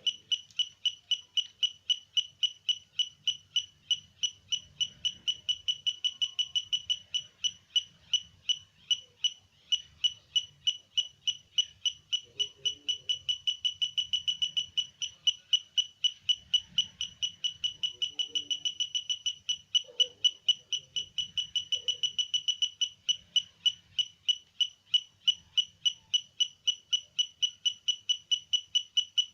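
Simple home-built metal detector's buzzer beeping in a steady pulse, a short high beep about three to four times a second.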